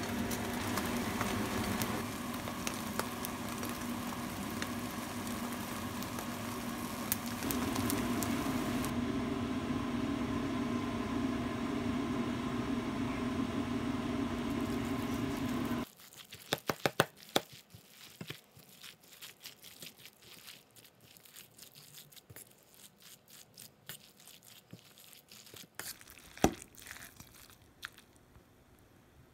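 A steady hum with a low drone for about the first half, which cuts off suddenly. After it, a metal spoon clinks and scrapes against a stainless-steel bowl while bibimbap is mixed, in scattered sharp clicks with one louder knock near the end.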